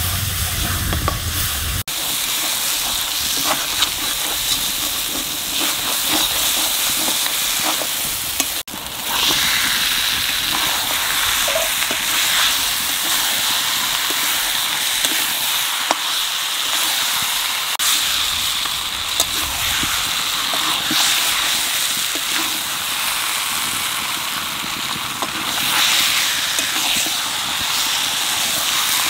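Chicken pieces sizzling in oil and spice paste in a wok while a metal spatula stirs and turns them, a steady frying hiss with small clicks of the spatula. This is the kosha stage of a chicken curry: the meat is being sautéed in the masala until the masala is fully cooked.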